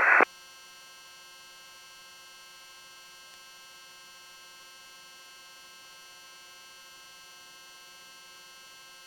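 A faint, steady hum made of several fixed tones, unchanging throughout.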